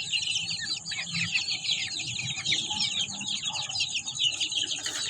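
Aseel chickens calling: a dense, constant chatter of short high chirps over lower clucking.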